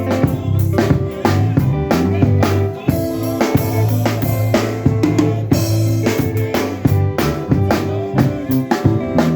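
Band music: a drum kit keeps a steady beat of bass drum and snare over held bass notes and other pitched instruments.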